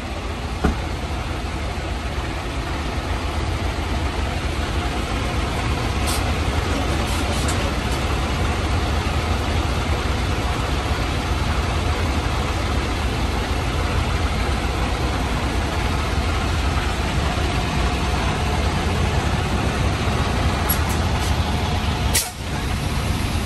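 Semi-truck's diesel engine running, a steady low rumble with an even noise over it. A few faint clicks and a brief dropout near the end.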